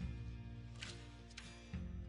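Quiet background music from iMovie's stock soundtracks: a low, held bass note that changes about three-quarters of the way through, with two light cymbal-like hits in between.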